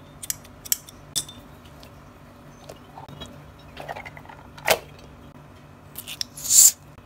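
Metal scissors clicking as they are handled, and a rubbery puffer toy being squeezed. Near the end comes the loudest sound, a short scraping snip as the scissor blades cut into the toy's rubber.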